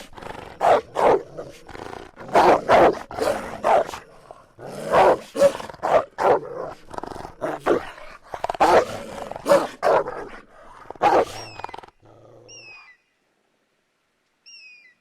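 A canid, wolf or dog, barking and growling in a rapid series of short, rough calls. It stops about three-quarters of the way through, and a few short falling whistles follow.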